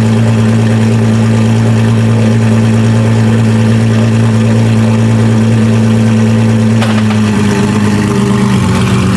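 A car engine idling loudly at a steady note, shifting to a slightly lower, rougher note about seven seconds in.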